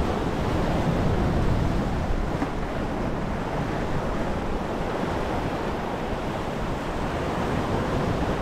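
Ocean surf washing steadily against coastal rocks, with wind on the microphone.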